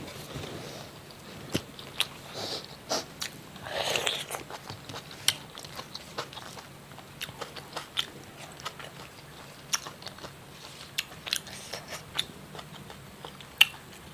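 A person eating fried fish up close to the microphone, biting and chewing, with irregular sharp clicks and crunches.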